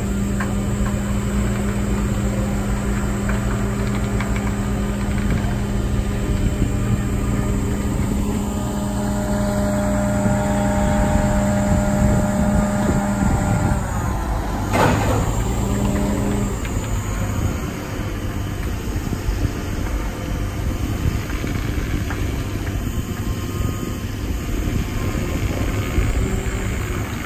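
Diesel power pack of a heavy self-propelled transport trailer running steadily, its note shifting a little about halfway through. One sharp knock or clank stands out about halfway through.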